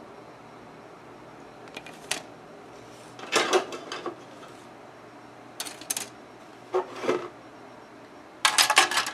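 Plastic model kit sprues clicking and clattering as they are handled and set down, in five short bursts of clatter, the last one near the end being the loudest and longest.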